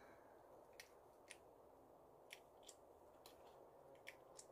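Near silence, broken by about seven faint, irregular clicks.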